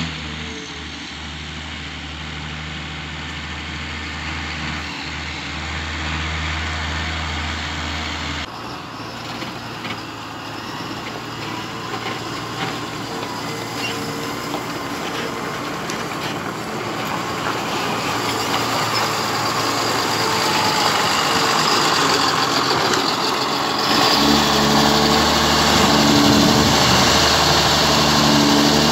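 John Deere tractor's diesel engine running, with the sound changing abruptly twice between short clips. It is loudest near the end, working as the tractor tips a trailer load of beet.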